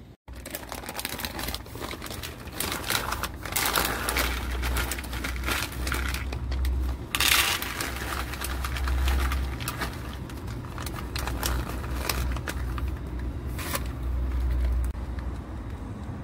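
Dry cat kibble being poured from its bag into plastic bowls: a dense rattling patter of pellets with the bag crinkling, over a low rumble, with a louder burst of pouring about seven seconds in.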